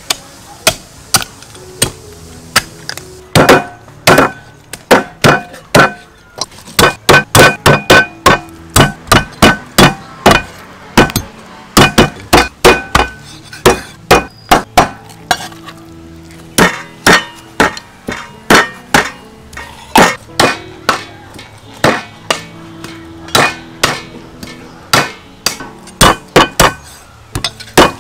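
Cleaver chopping a raw goose, meat and bone, into pieces on a thick wooden chopping block: sharp, repeated chops in quick runs of two or three a second with short pauses between.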